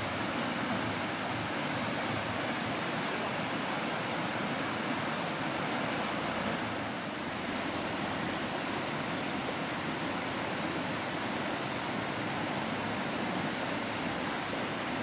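Steady rushing of a shallow stream running over a rocky bed.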